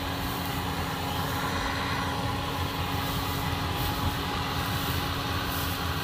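Yanmar AW82 combine harvester, fitted with a Kubota DC95 header, running steadily while cutting ripe rice: a constant engine and machinery drone with a steady hum.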